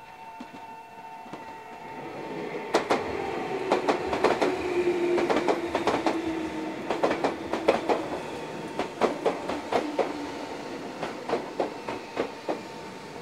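Meitetsu 1200 series electric train running past close by: a rumble that builds over the first few seconds, then a long run of sharp clatters as the wheels cross rail joints and points, with a low motor whine that falls in pitch. A level-crossing warning bell rings steadily underneath.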